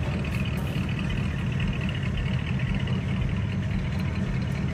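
Vehicle engine idling steadily, a low-pitched running sound that stays even throughout.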